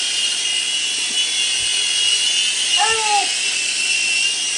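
Micro RC helicopter's small electric motors and rotor whining steadily at a high pitch, the pitch wavering slightly as it flies. A child gives a short call about three seconds in.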